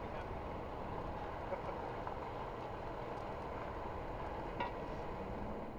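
Fire engine idling steadily in a low rumble, with a couple of faint ticks.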